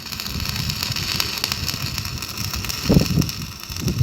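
Stick welding: the electrode's arc crackling steadily with fine rapid spatter clicks as the rod burns along the joint.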